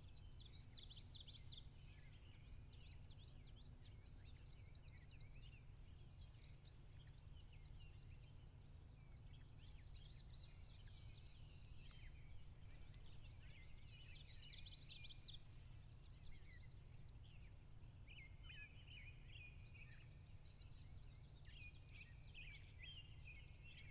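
Faint birdsong from several small birds, short chirps and quick trills that keep coming and going, over a low steady background rumble.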